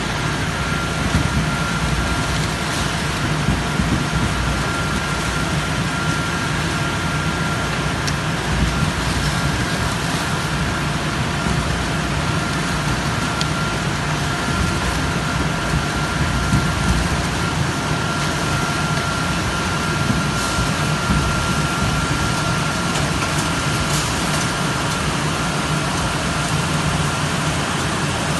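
Industrial crate-washing machine running: a steady rush of spraying water over a constant machine hum, with a thin steady whine throughout.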